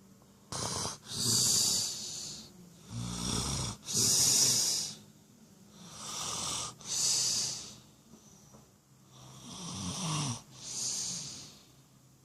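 A person snoring in sleep: about four slow breaths, each a pair of noisy swells in and out, one with a low rattle about three seconds in.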